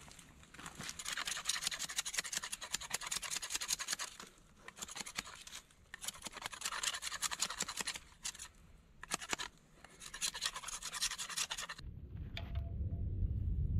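A knife scraping and shaving a thin wooden stick, in several runs of quick strokes with short pauses between them. Near the end the scraping stops and a low steady rumble takes over.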